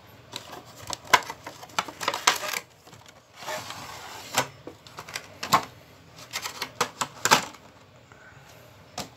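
Cardboard box and clear plastic blister tray of a Hot Wheels five-car pack being opened and handled: a run of sharp plastic clicks and crackles, with a longer sliding rustle about three and a half seconds in as the tray comes out of the box.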